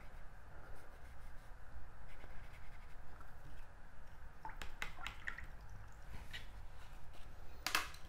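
Low steady room hum with faint handling sounds of watercolour brush and paper: a few light clicks and taps about halfway through, and a sharper tap near the end.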